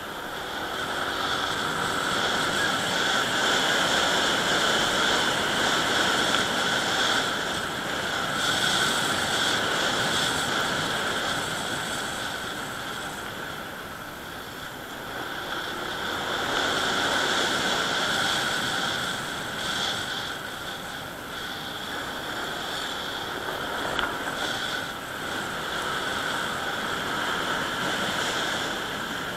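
Motorcycle riding along a road: wind rushing over the microphone with the engine running underneath, swelling and easing several times as the speed changes.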